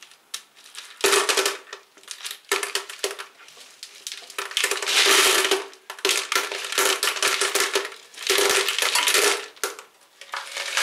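Hard semi-hydro potting medium rattling and crunching against a plastic pot as an orchid's packed root mass is worked loose and lifted out. It comes in several bursts of dense clicking, the longest a little past the middle.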